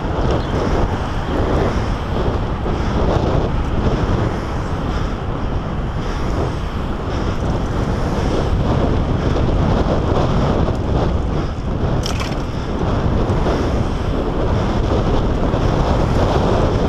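Wind rushing over the microphone of a camera on a moving bicycle, a steady loud rush.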